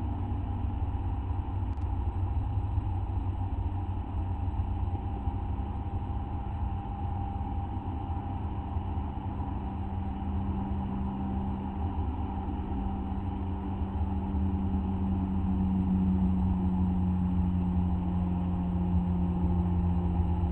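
Steady low hum with a constant droning tone, getting a little louder in the second half.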